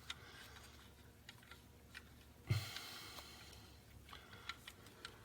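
Faint, scattered small clicks and taps of a hand wrench and socket working the alternator's terminal nut, with a soft bump about halfway through.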